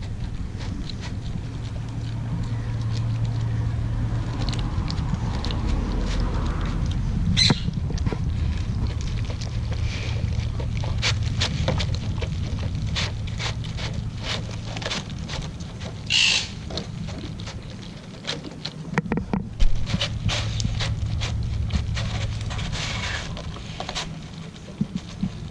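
A dog chewing and licking raw meat out of a plastic tray: a steady run of irregular wet clicks and smacks, with the tray scraping on the tiles twice. A low steady rumble runs underneath.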